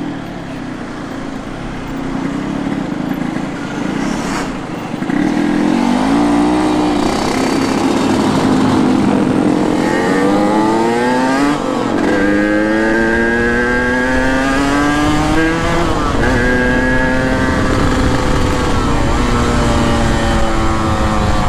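Two-stroke motorcycle engine under way. It runs fairly steady for the first half, then revs up in a series of rising sweeps as it pulls through the gears, and settles into a steady higher-pitched cruise.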